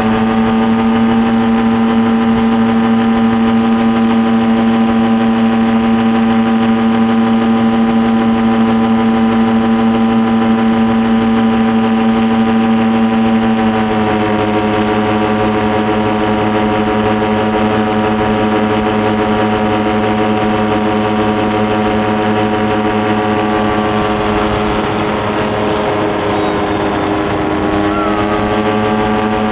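Engine running steadily at a constant pitch, dropping slightly in pitch about halfway through and wavering briefly near the end before settling again.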